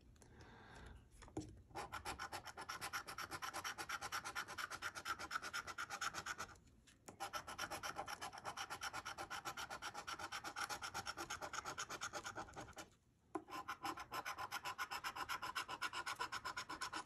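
A coin scraping the latex coating off a lottery scratch-off ticket in quick, rhythmic back-and-forth strokes, several a second, with two short pauses, about seven and thirteen seconds in.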